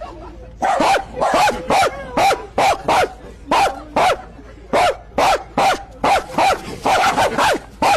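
A dog barking over and over, starting under a second in, about two to three sharp barks a second, each dropping in pitch at its tail.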